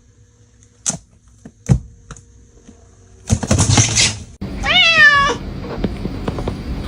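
A domestic cat giving one clear meow about two-thirds of the way through, its pitch rising and then holding. Before it come two short knocks and a second-long burst of noise.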